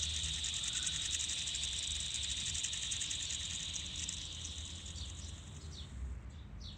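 Steady, high-pitched insect buzzing with a fast flutter, presented as a dragonfly's sound. It fades after about five seconds, and a few short chirps come near the end.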